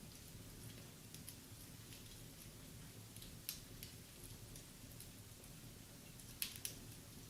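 Wood fire in a fireplace crackling faintly, with a few sharper pops over a low, steady sound of the flames; the loudest pop comes about three and a half seconds in, and two more come close together near the end.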